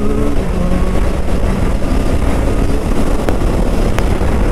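Triumph Street Triple 765 RS's inline three-cylinder engine running steadily at speed, mixed with wind rush on the microphone. Two faint clicks come near the end.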